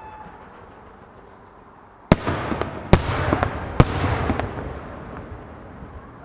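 Japanese aerial firework shells bursting overhead: three loud bangs less than a second apart, each trailed by smaller crackles and an echoing rumble that slowly fades.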